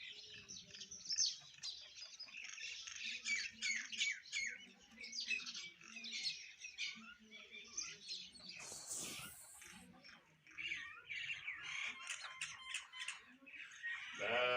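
A group of house sparrows chirping continuously in many rapid, overlapping chirps. A brief rushing noise sounds about two-thirds of the way through.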